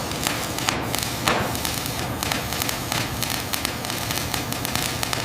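Continuous dense crackling and hissing noise over a steady low hum, starting abruptly.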